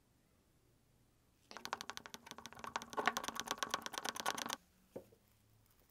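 Wooden craft stick stirring oil-and-wax finish paste in a glass jar, clicking rapidly against the glass, about ten clicks a second for about three seconds. A single knock follows about a second later.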